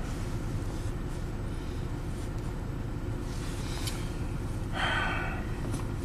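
1998 Toyota Camry's 1MZ-FE V6 idling, heard from inside the cabin, with a misfire on cylinder 4, where a compression test found only 60 psi. A short hiss about five seconds in.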